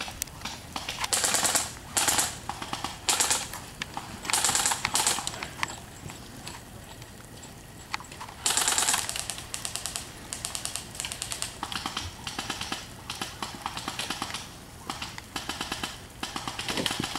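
Airsoft electric guns firing full-auto, a rapid clicking rattle. Several long bursts come first, then a run of shorter, quicker bursts in the second half.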